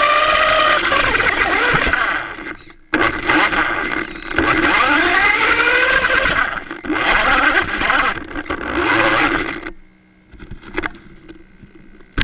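FTX radio-controlled car's electric motor whining in three throttle bursts, the pitch rising with each, over a rushing noise. It stops about ten seconds in, leaving a faint steady hum and a few clicks.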